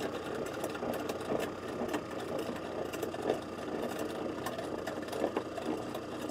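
Small motorized winch whirring steadily as it hauls a rope up from the lake bed, with scattered light clicks and rattles.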